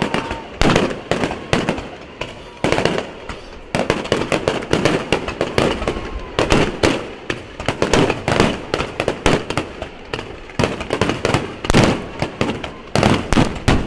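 Aerial fireworks bursting in a rapid, unbroken barrage: several sharp bangs a second, with crackling between them.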